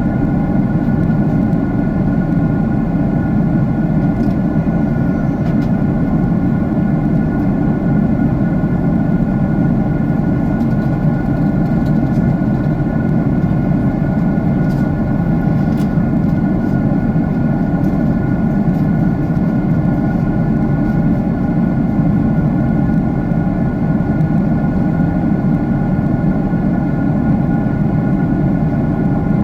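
Jet airliner cabin noise: the engines and the airflow make a steady, loud roar with a few constant hums over it.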